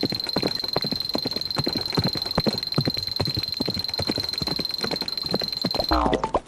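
Rapid galloping footsteps, a hoof-like clip-clop sound effect, over a steady high-pitched tone. They stop about six seconds in, and a short pitched, sliding sound effect begins.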